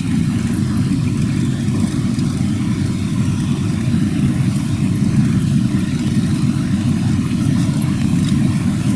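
Car engine and road noise heard from inside the cabin while driving slowly on a rough, wet road: a steady low rumble.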